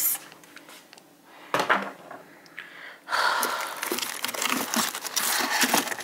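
Plastic food containers being handled in a freezer: a single knock, then a few seconds of rustling and crinkling with small clicks and clatter as containers and frozen packaging are moved.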